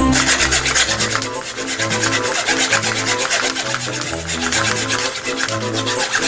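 Junior hacksaw sawing through a wooden tree branch, quick repeated back-and-forth strokes rasping through the wood, with background music playing under it.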